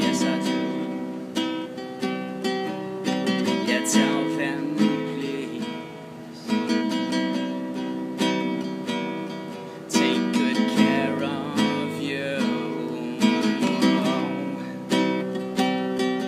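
Nylon-string classical guitar played solo, fingerpicked, with a few louder strummed chords.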